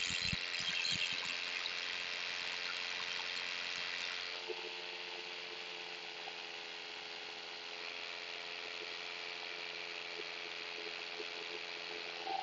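Paramotor engine and propeller running steadily in flight, a constant motor note under a rushing hiss of air. The hiss eases a little about four seconds in.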